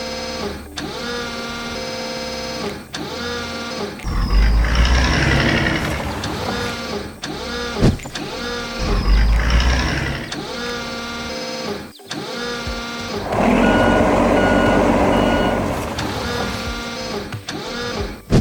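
Cartoon construction-machine sound effects: a heavy vehicle engine rumbling in two surges, with a repeating reversing beep near the end, over a pitched, bending cartoon soundtrack.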